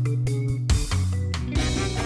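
Background music: a Latin-style track with plucked guitar notes, bass and percussion.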